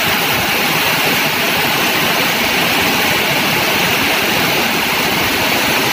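Heavy rain falling steadily, mixed with vehicles running through floodwater on the road and the splash of the water they push aside.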